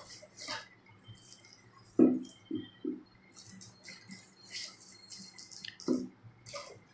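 Handling noise as gas cylinders are unpacked: packaging rustling, with light clicks and a sharp knock about two seconds in, then two softer thuds and another knock near the end.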